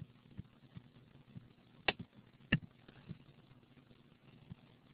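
Two sharp computer mouse clicks, a little over half a second apart, about two seconds in, over faint room hiss.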